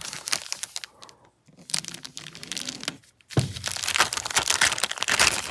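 Clear plastic parts bag crinkling as hands handle and open it. It comes in crackly spells with two short pauses, then runs dense and steady over the last two seconds.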